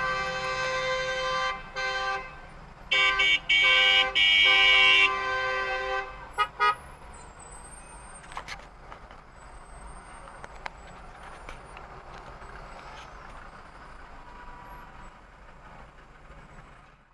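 Car horns blaring in long held blasts for about six seconds, louder and higher-pitched partway through, then two short toots, after which only the low steady noise of idling traffic remains.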